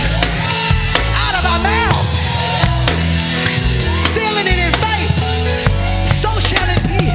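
Live worship band playing, with a singer's voice sliding over sustained bass and keyboard chords and a drum kit keeping the beat.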